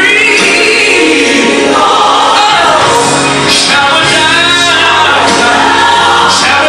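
Gospel song playing: sung voices with choir over steady accompaniment, the singing sliding and bending in pitch.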